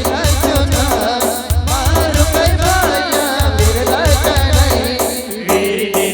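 Timli band music: an instrumental passage with a wavering, ornamented lead melody over a steady, driving drum beat and cymbal strokes.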